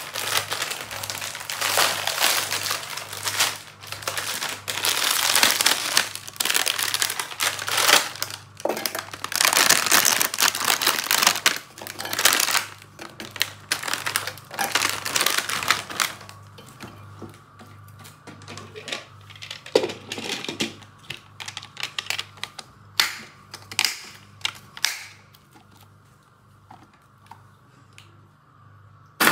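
Plastic biscuit wrapper crinkling loudly as it is opened and handled, then scattered clicks and knocks as biscuits drop into a steel blender jar and the plastic lid is fitted on, dying away near the end.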